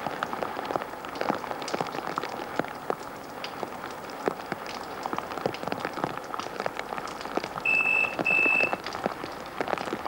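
Rain falling into puddles and dripping, a steady patter of many separate drops. About three-quarters of the way in, a telephone rings twice in quick succession in the British double-ring pattern, louder than the rain.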